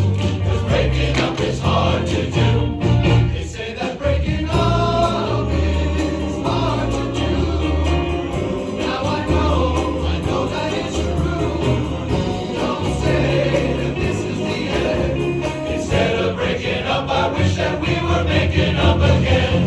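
Male chorus singing a 1960s pop song with instrumental accompaniment, over a bass line of held notes.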